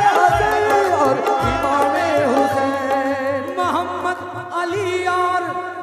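Qawwali music: a man's voice sings a drawn-out, gliding line over harmonium and hand-drum accompaniment, with deep drum strokes.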